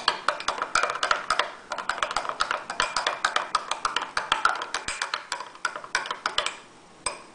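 A spoon stirring in a glass cup, clinking rapidly against the glass several times a second, with a brief pause about six and a half seconds in.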